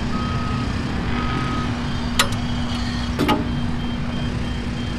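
Steady drone of machinery running nearby with a constant hum, and short electronic beeps coming and going. Two sharp metal clicks about two and three seconds in as the rear gates over the engine of a Schaffer mini articulated loader are lifted open.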